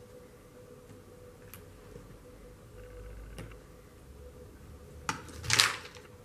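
A few faint clicks as buttons are pressed onto a wooden frame, then about five seconds in a brief, loud rustle of a paper sheet as a hot glue gun is picked up off it.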